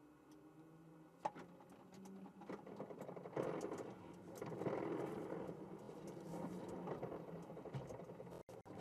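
Onboard sound of a stopped Toyota TS040 Hybrid Le Mans prototype: a low steady hum with scattered clicks. From about three and a half seconds, a louder rough rustling and scraping rises as track marshals handle the car at the nose.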